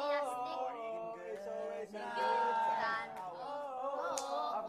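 Voices singing a song, with some notes held for nearly a second.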